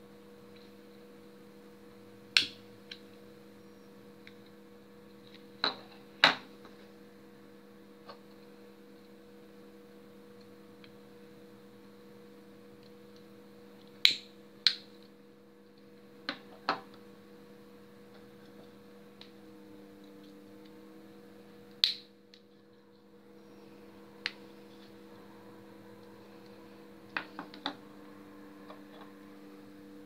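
Novelty lighters being handled and set down on a table: about a dozen sharp clicks and taps, scattered and sometimes in quick pairs, over a steady electrical hum.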